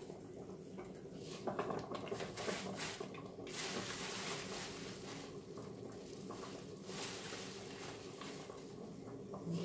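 Plastic bag rustling and leafy greens crackling in irregular bursts as handfuls of wild mustard greens are pulled out and dropped into a pot of boiling broth.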